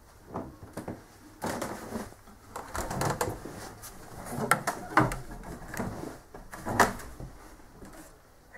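Footsteps climbing a wooden staircase: irregular knocks on the wood, the loudest about five and seven seconds in.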